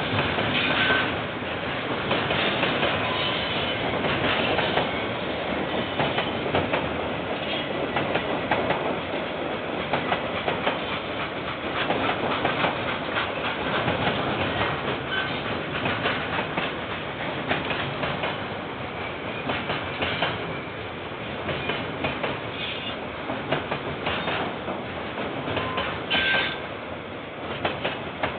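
KiwiRail train rolling past, its wagons' wheels clattering steadily over the rail joints.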